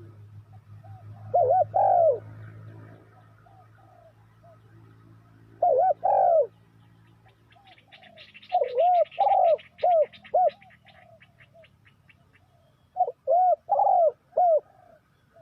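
Spotted dove cooing: four loud phrases of several rounded, arched coo notes each, spaced a few seconds apart. A faint, fast ticking trill from another small bird or insect runs higher up in the middle.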